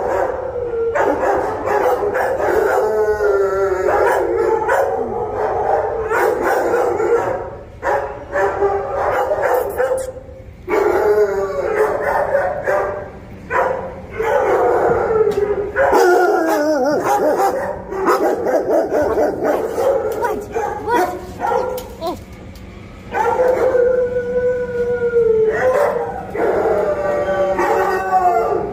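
Many kennelled dogs barking and howling at once: sharp barks overlap with long, wavering howls, and the din dips only briefly now and then.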